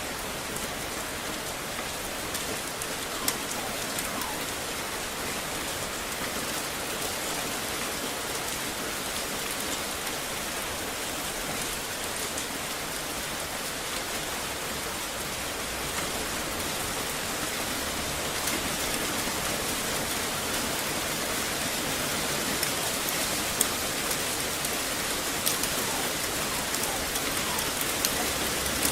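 Steady rain falling on hard surfaces, with scattered sharper drop hits. It grows a little louder about two-thirds of the way through.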